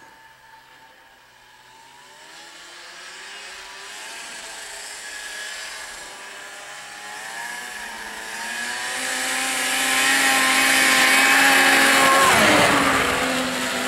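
2000 Arctic Cat ZR 600 snowmobile's two-stroke engine running under throttle as the machine approaches, its pitch climbing at first and its sound growing steadily louder. Near the end the pitch drops sharply as it passes close by.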